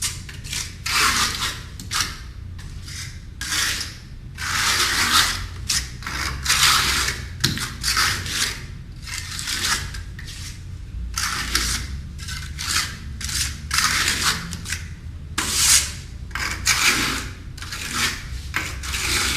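Repeated scraping, rasping strokes, irregular and about one or two a second, of a tool spreading Redgard liquid waterproofing membrane thinly over cement board.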